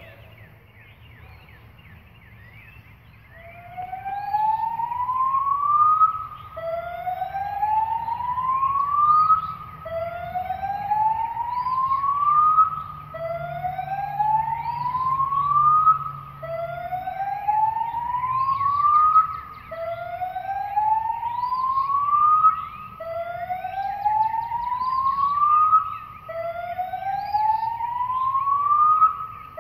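Synthesized emulation of a Federal Signal Modulator/UltraVoice outdoor warning siren sounding its whoop signal. A tone rises steadily in pitch for about three seconds, then cuts off abruptly and starts again low, about eight times in a row. The whoops begin about three seconds in, after a faint hum.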